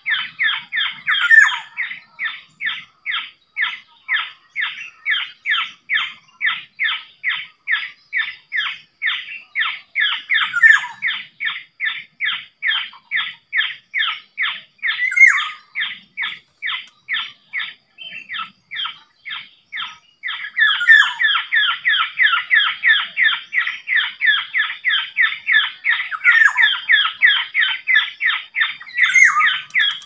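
Bird-trapping lure call: rapid, even bird chattering, about three to four calls a second, played to draw black-naped orioles, with a louder, sharper call every few seconds. The chatter thins for a couple of seconds just past the middle.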